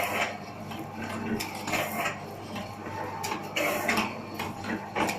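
Automatic four-side-seal sachet filling and sealing machine (Mansy model 505) running. A steady low motor hum sits under a busy run of mechanical clicks and clacks, several a second, as the mechanism cycles the bags.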